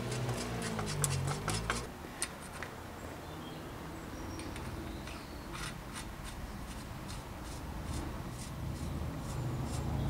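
Threaded bicycle headset cup being turned by hand down the steerer threads: light metal clicks and rubbing, quick and regular for the first couple of seconds, then sparser. A low rumble sits under it at the start and again near the end.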